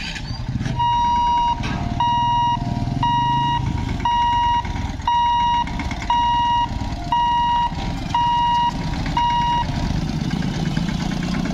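Level-crossing boom-barrier warning buzzer beeping about once a second, nine even beeps, as the electric barriers lift, then stopping shortly before the end. Under it, motorcycle and tractor engines running as the vehicles cross the tracks.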